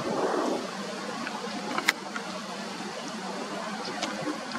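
Distant twin-engine jet airliner on final approach, a steady rushing engine noise, with wind on the microphone and one sharp click about two seconds in.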